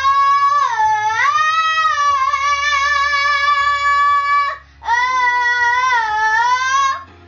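A young girl singing two long held "oh" notes into a karaoke microphone, her high voice dipping and wavering in pitch, with a short break between the notes about four and a half seconds in.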